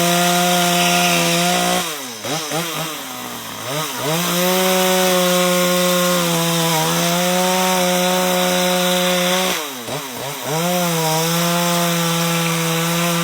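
Chainsaw running at high revs while carving wood. The revs drop and climb back up twice, about two seconds in and again about ten seconds in.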